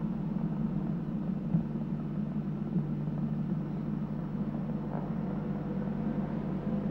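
Steady low hum and hiss of background room noise, with a couple of faint clicks.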